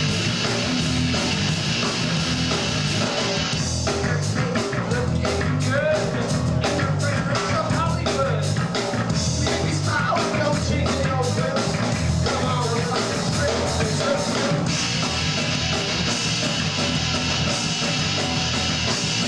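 Rock band playing live: electric guitars and drums, with a singer's voice over the music from about four seconds in until about fifteen seconds in.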